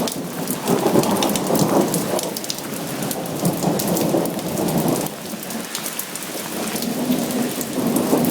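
Heavy rain in a thunderstorm: a steady downpour with countless drops ticking on hard surfaces, easing slightly about halfway through.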